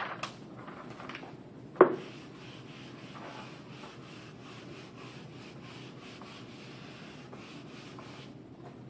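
Whiteboard eraser being rubbed back and forth across a whiteboard, wiping it clean in repeated strokes. A single sharp knock comes about two seconds in.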